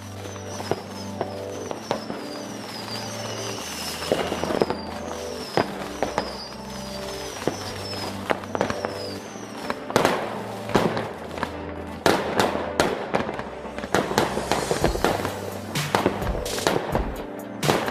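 New Year's Eve fireworks banging and crackling, the bangs coming thicker and louder from about ten seconds in, over background music.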